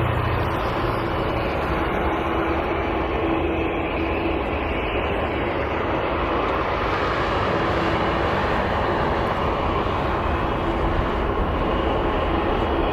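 Jet airliner engines running with a steady, even noise and faint steady tones, with no clear rise or fall.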